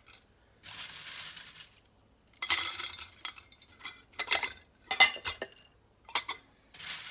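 Brittle dehydrated serrano and jalapeño peppers rustling and crackling as they are dropped in handfuls through a stainless steel funnel into a glass canning jar, with sharp clinks against the metal and glass. Several separate bursts, the loudest a clink about five seconds in.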